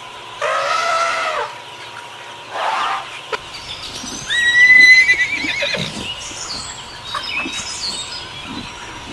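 A horse whinnying: a high, held neigh that breaks into a wavering trill about halfway through, the loudest sound, followed by scattered knocks. Before it come two shorter arched calls from another animal.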